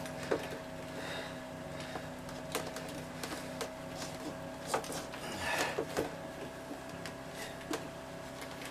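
Stiff clear vinyl tubing being worked by hand onto a water-line fitting: scattered light clicks and short rubbing sounds, over a steady faint hum.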